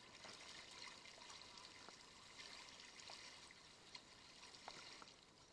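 Faint trickling of flowing floodwater, with a few faint ticks and drips.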